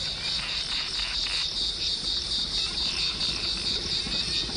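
A chorus of insects chirring: a steady high-pitched trill that pulses evenly without a break.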